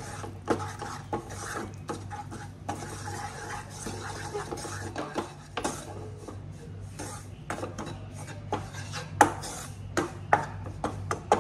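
A wooden spatula scraping and stirring a crumbly flour mixture for kasar in a non-stick pan: irregular scrapes and knocks, a few sharper ones near the end, over a steady low hum.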